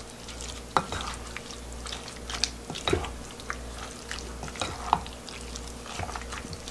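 Wooden spoon and hand mixing raw boneless chicken feet into a thick red chili seasoning in a bowl: irregular wet, sticky squelching, with a few light knocks of the spoon on the bowl.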